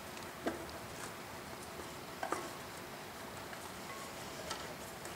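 A few light clicks and taps of the spark box being handled and set against the engine's cast-iron magneto mount, the clearest one about two seconds in, over faint room tone.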